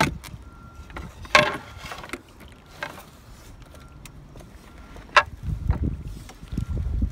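A few sharp knocks and clunks on a canoe hull as an electric trolling motor's tiller and mount are handled, the loudest about a second and a half in. Low wind rumble on the microphone comes in near the end.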